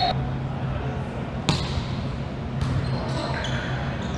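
Volleyball bouncing once, sharply, on a hardwood gym floor about a second and a half in, over the low hum and echo of a large sports hall.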